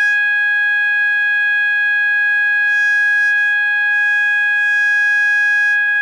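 System Sensor MASS24LOC fire alarm sounder sounding a loud, steady, unbroken tone.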